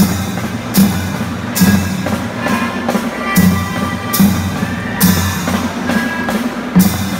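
Music with a steady drum beat, a heavy bass-drum hit a little more than once a second with cymbal or hi-hat on top, under a melody line.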